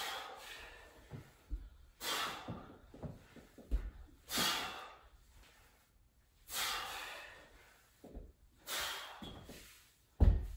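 Forceful exhales during goblet split squats: five hissing breaths, one about every two seconds, each fading away, with soft thumps between them and a louder thump near the end.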